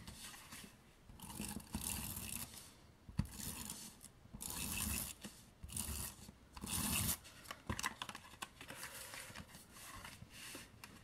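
Cardstock and patterned paper being handled, slid and pressed down on a craft mat, with a series of scraping, rustling strokes as adhesive is run onto a panel and it is stuck in place. A sharp click about three seconds in.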